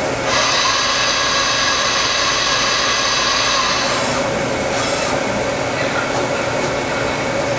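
Citizen M20 CNC Swiss-type lathe running a program. A steady high whine from the spindles at speed starts a moment in and stops after about three and a half seconds, over the machine's constant hum. Two brief rushing noises follow about a second apart.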